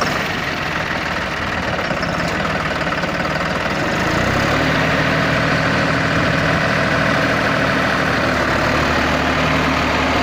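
John Deere 5405 tractor's three-cylinder diesel engine running just after starting. A little over four seconds in it gets louder and settles into a steady note.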